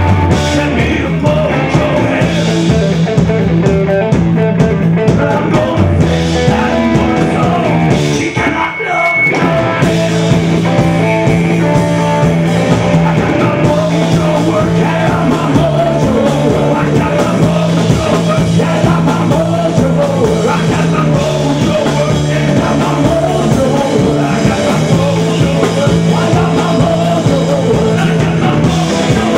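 Rock band playing, with electric guitar, bass, drums and singing. The music drops out briefly about eight and a half seconds in, then carries on.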